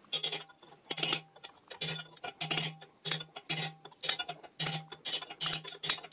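Hammer striking a steel punch set through the pinion bore of a Dana 60 axle housing, driving out the inner pinion bearing race: steady metallic blows about two a second, each with a brief low ring.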